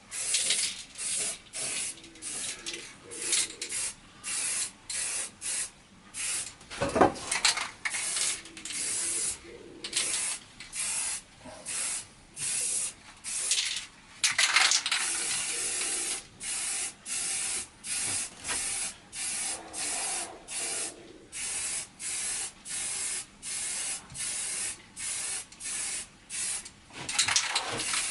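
Aerosol can of spray primer sprayed in short, repeated hissing bursts, about one or two a second, with one longer spray about fourteen seconds in.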